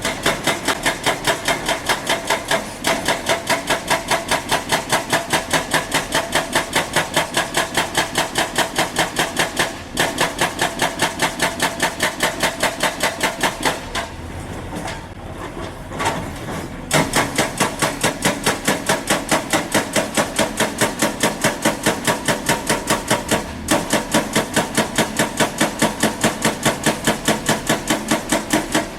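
Excavator-mounted hydraulic breaker hammering rock, loud, fast, even blows at about four a second, stopping briefly a few times as the chisel is repositioned.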